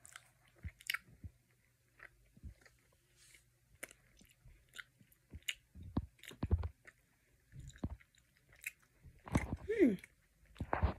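Someone chewing a gummy candy shaped like a Coca-Cola bottle, with soft, irregular wet mouth sounds and small clicks. A short hum of voice comes near the end.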